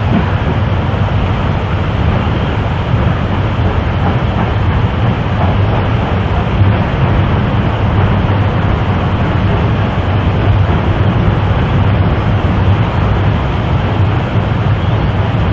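Railway coaches rumbling steadily as they cross a girder bridge over a river.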